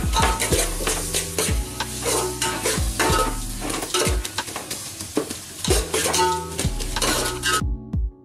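Metal spatula scraping and clinking against an aluminium pot as onions, chillies and spices are stirred while frying in oil, with a sizzle underneath. The stirring stops abruptly near the end.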